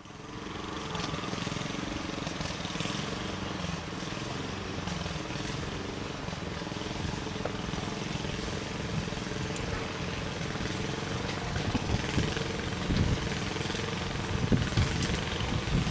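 British Railways Class 108 diesel multiple unit's underfloor diesel engines running steadily as the train approaches, growing slightly louder with a few sharp knocks near the end.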